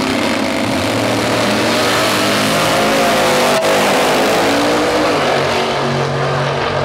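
Two Pro Doorslammer drag cars launching from the start line and running at full throttle down the strip, their engines loud and steady, the pitch sweeping up and down as they accelerate.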